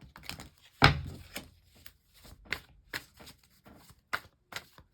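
Tarot cards being shuffled and handled: a string of irregular papery taps and slaps, with one heavier knock about a second in.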